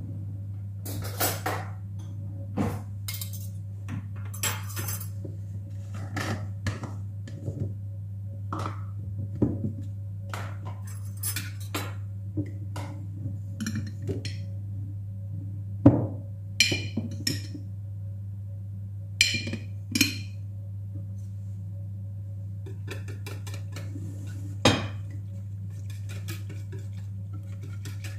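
Kitchen handling clatter: a glass storage jar and its plastic lid being handled, a metal whisk set down and a spoon scooping flour and knocking against the bowl. Scattered clinks and knocks over a steady low hum.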